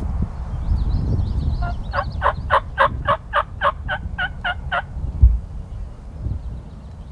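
Wild turkey yelping: a run of about eleven evenly spaced yelps, roughly four a second, lasting about three seconds, starting a couple of seconds in. A low rumble of wind or handling noise runs underneath.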